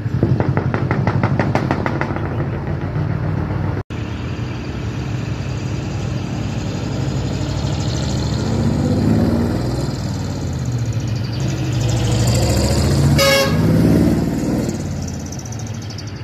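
Heavy diesel truck engines with manifold-split (mani-wari) exhaust running loud and deep as the trucks pass, the note rising and falling. A short horn toot comes near the end.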